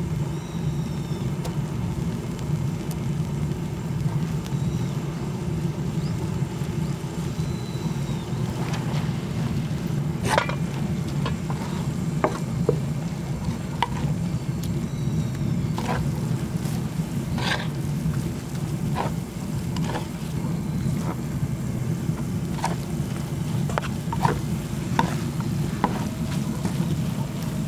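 Wooden spatulas scraping, chopping and clicking against a large cast-iron cauldron-lid griddle as rice is stir-fried in leftover pork-bone stew, with a frying sizzle, over a steady low rumble.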